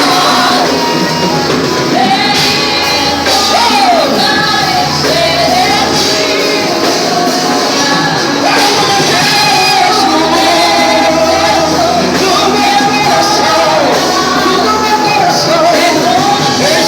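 Christian worship music with singing, loud and continuous, a sung melody carried over the accompaniment.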